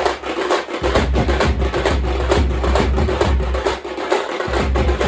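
Drums beaten loudly in a fast, continuous rhythm of several strokes a second, with a deep low boom under the sharper strokes that drops out briefly twice.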